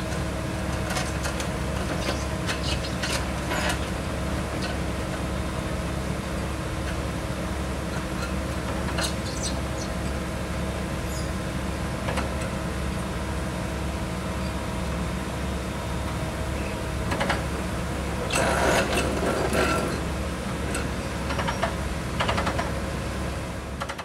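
Water well drilling rig's engine running steadily, with scattered metallic clanks and knocks of drill pipe being handled. A louder run of clanking comes about three-quarters of the way through.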